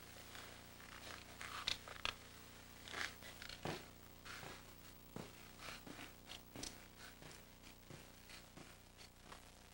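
Faint rustling and scattered soft clicks over quiet room tone.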